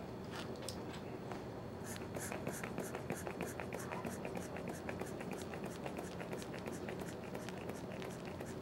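Faint quick light clicks and scratching, about three a second, from an aneroid blood pressure cuff and stethoscope being worked during a manual blood pressure reading.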